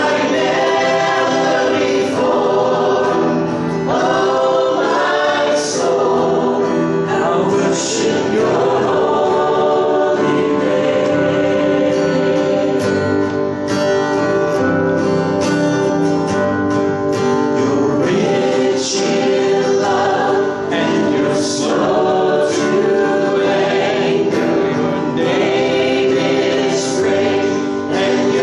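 Several women's and men's voices singing a song together in harmony, accompanied by strummed acoustic guitar and keyboard.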